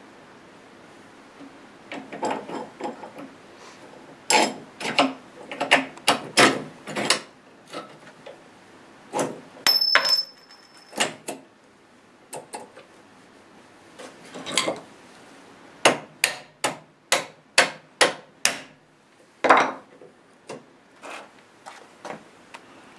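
Steel engine parts clinking and knocking as a drive shaft extension, bearing collar and bracket are fitted onto a motorcycle engine by hand: irregular clusters of sharp metal knocks, with a quick run of them near the two-thirds mark. One clink rings on briefly about ten seconds in.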